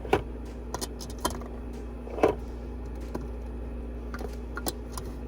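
Lipstick tubes being set into a makeup organizer: a series of small, irregular clicks and taps, the loudest a little past two seconds in, over a steady low hum.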